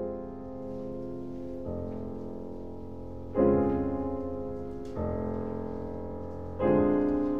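Slow piano chords, each struck and left to ring and fade, a new chord about every second and a half, with deep bass notes under them.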